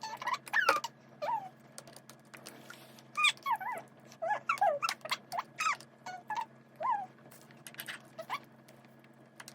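A toddler's short, high-pitched squeals and babbles, each sliding down in pitch and coming in quick runs, with a few light knocks in between.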